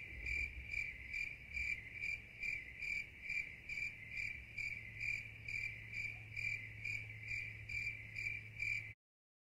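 Cricket chirping, laid in as a comedic 'crickets' sound effect: a steady, even chirp about twice a second over a faint low hum, stopping abruptly near the end.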